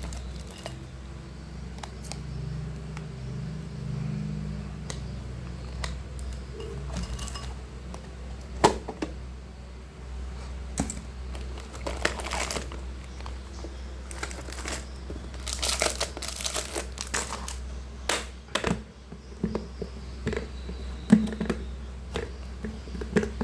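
Plastic instant-noodle packaging crinkling and rustling as it is handled and torn open, in scattered bursts with sharp clicks and taps, over a steady low hum.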